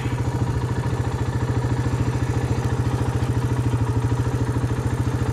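ATV (four-wheeler) engine running steadily while riding across grass, with a rapid, even beat.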